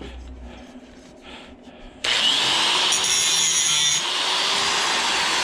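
An electric grinder grinding the end of a stainless steel fitting, cutting in suddenly about two seconds in and running steadily with a high whine. It is a spark test: the fitting throws sparks, so it is stainless steel rather than brass.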